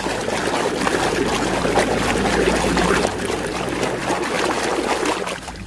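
Water splashing and sloshing as a muddy plastic toy is washed in a basin of water, with small clicks and knocks of the toy against the water and container; it dies down near the end.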